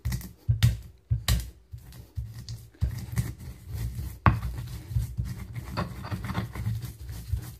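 Pestle working spices in a mortar: a few sharp knocks in the first second and a half, then steady grinding and scraping with small crunches as candlenuts are crushed into a garlic and ginger paste.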